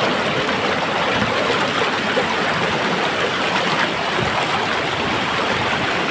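Waterfall rushing steadily over rocks, a constant even roar of falling water.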